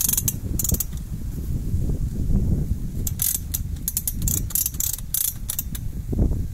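Vink calving jack being pumped by hand: its ratchet clicks in quick runs, with the chain clinking, as it draws the calf out of the cow in an assisted birth. One run of clicks comes right at the start, and a longer run from about three seconds in.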